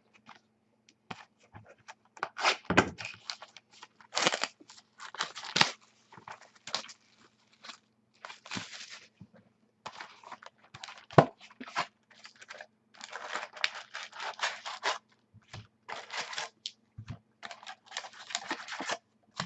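Plastic wrapping and foil card packs being torn open and crinkled by hand, in a series of rustling bursts with scattered clicks and taps.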